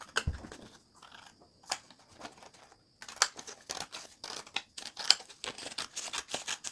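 Scissors snipping through a sheet of paper, cutting it in half lengthwise: a few sparse snips at first, then a quick run of snips from about three seconds in. A single thump just after the start.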